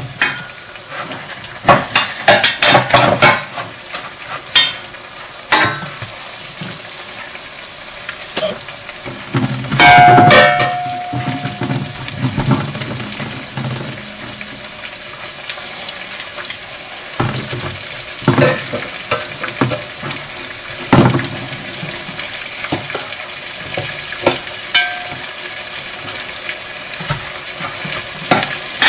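Breaded chicken nuggets sizzling as they shallow-fry in oil in a pan, with repeated clicks and scrapes of a fork against metal bowls while more pieces are coated. About ten seconds in, a louder clatter with a brief ringing tone.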